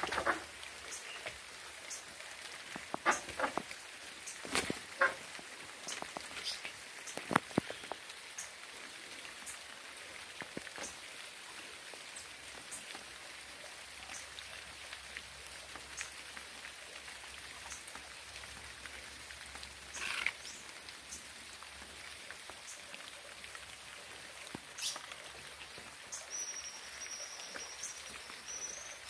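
Rain falling in a steady hiss, with large drops striking a surface in sharp separate taps, several in the first few seconds and one more later on. Near the end, a faint, high, steady tone joins in.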